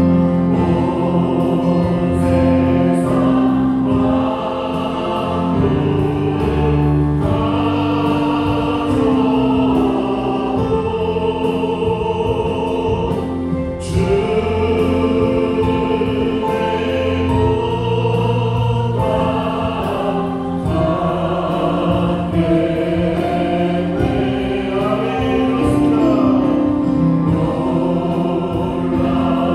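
A church worship band playing a hymn with a choir of voices singing over it: Yamaha Montage 8 keyboard, electric bass guitar and drums.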